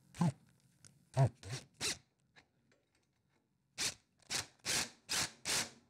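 New steering rack and pinion of a Troy-Bilt TB30 riding mower being worked back and forth through their mesh, the gear teeth rasping in short strokes. There are a few quick strokes at first, then five evenly spaced ones about half a second apart.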